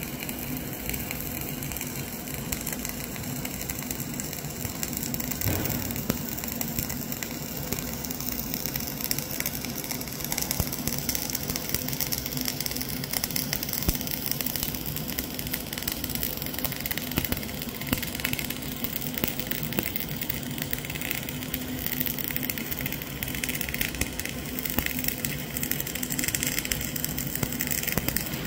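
Flux-cored arc welding arc burning continuously during a vertical fillet weld, a steady dense crackling with a low hum underneath.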